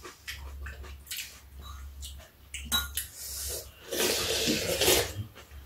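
Eating at the table: spoons and chopsticks clicking against ceramic bowls, and about four seconds in a loud slurp of soup and rice cake lasting about a second.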